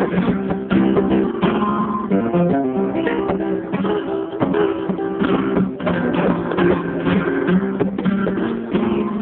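Flamenco acoustic guitar playing strummed chords mixed with picked notes, with many sharp strokes throughout.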